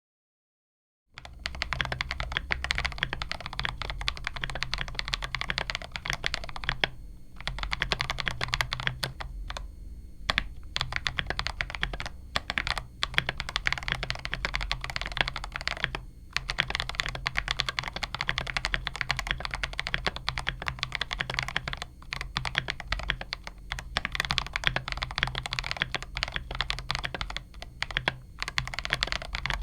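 Typing on a mechanical keyboard: fast, continuous key presses that start about a second in, broken by a few short pauses.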